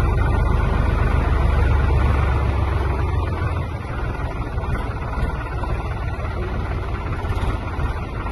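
Farm tractor engine running steadily as the tractor drives through floodwater, a low drone that eases off slightly about four seconds in.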